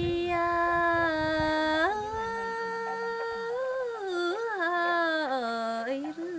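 A woman singing lượn cọi, the Tày folk song, unaccompanied: one voice holding long notes that slide from one pitch to the next, with a wavering, ornamented passage in the middle.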